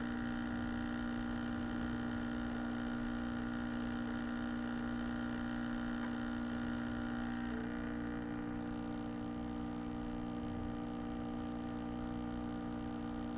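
A steady droning hum made of several held tones at once, which shift slightly about seven and a half seconds in.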